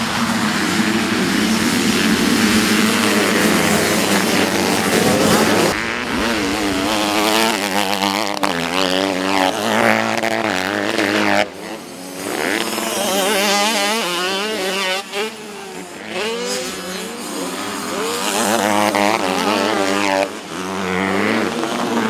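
85cc two-stroke motocross bikes racing: first a pack of engines together, then single bikes revving, their pitch rising and falling over and over as the riders work the throttle. The sound changes abruptly several times.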